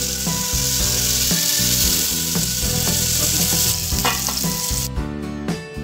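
Masala-coated catla fish steaks sizzling steadily as they shallow-fry in oil on a tawa, with background music underneath. The sizzle fades and then drops out about five seconds in, leaving the music.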